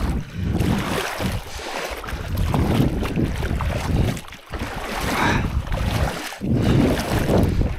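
Legs wading through shallow, cold lake water, the water sloshing and splashing in uneven surges with each stride.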